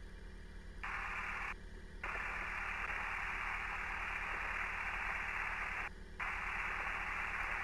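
Hiss from an aircraft radio and headset feed, cutting in and out several times as the channel opens and closes with no one speaking, over a low steady hum.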